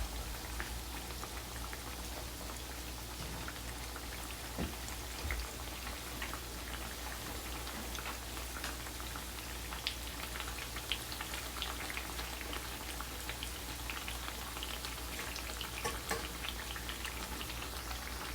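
Chickpea-flour fritters deep-frying in hot oil: a steady sizzle with many scattered small crackles and pops, and a couple of soft knocks about five seconds in.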